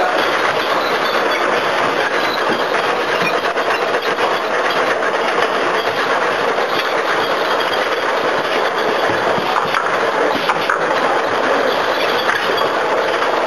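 Automatic multi-nozzle ink filling machine running: a steady mechanical clatter with scattered clicks.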